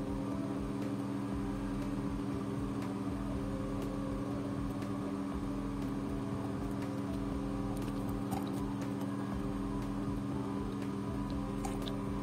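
A steady, even hum with several held tones. Around eight seconds in and again near the end come faint, brief squirts from a plastic wash bottle rinsing gold foils in a glass beaker.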